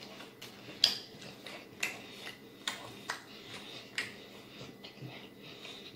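Mouth sounds of eating: wet lip-smacking and chewing clicks, short and irregular, about one or two a second.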